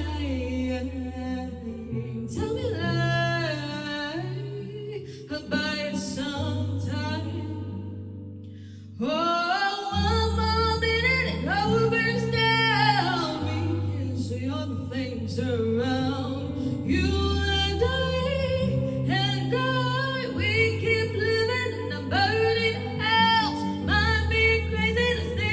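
Song playing: singing over sustained bass notes. The backing fades down about a third of the way in, then comes back in fully.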